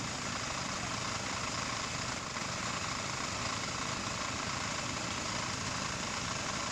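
Engine of a kuliglig (two-wheel hand tractor) running steadily.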